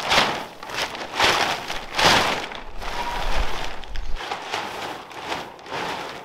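Heavy-duty silver plastic tarp crackling and rustling as it is unfolded, shaken out and pulled over a frame, in a run of loud swishes, the loudest about two seconds in.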